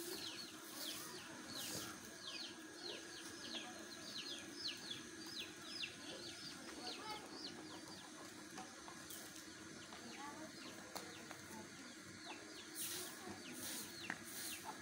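Small birds chirping in quick, high, falling notes, many to the second in the first half and fewer later, over a faint steady hum. Brief bursts of hiss come near the end.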